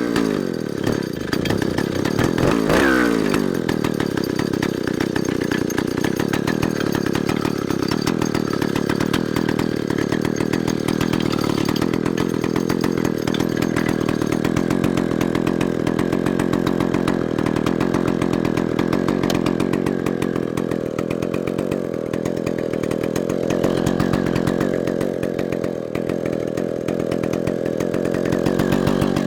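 Vintage 1960s Stihl Contra two-stroke chainsaw engine running. It revs up and down over the first few seconds, then settles into a steady run.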